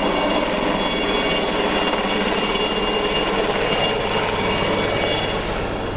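Small helicopter flying low overhead: steady rotor and engine noise with high whining tones, easing slightly near the end.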